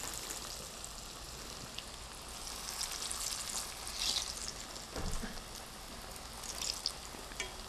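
Cassava fritters deep-frying in a pot of oil on medium heat: a steady sizzle with flurries of crackling as chopsticks stir the pieces. There is a light knock about five seconds in.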